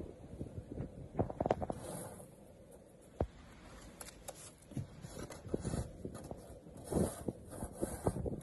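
Snow shovel with a plastic blade scraping and pushing through fresh snow, in a run of irregular scrapes and crunches, with a sharp knock about three seconds in.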